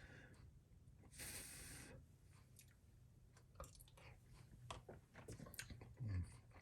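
A person quietly chewing a mouthful of pasta, with many small wet mouth clicks and a breath about a second in.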